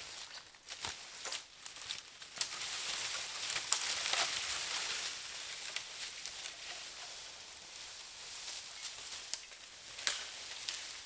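Footsteps crunching through dry fallen leaves while a long dead branch is dragged through the leaf litter, a steady rustle with scattered twig snaps. The rustle is loudest from about two to five seconds in.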